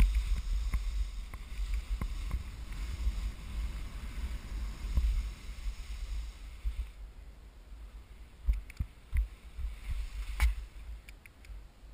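Skis slicing through heavy, wet slush, a swishing hiss over a low rumble. After about seven seconds it quietens, with a few short thumps and a sharp click near the end as a ski pole is planted in the snow.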